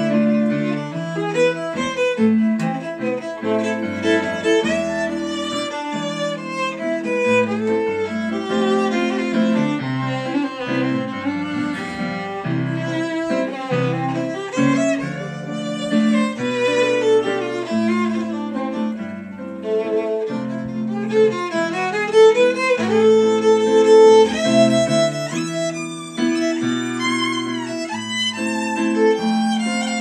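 A fiddle plays a waltz melody with sliding notes over a keyboard accompaniment.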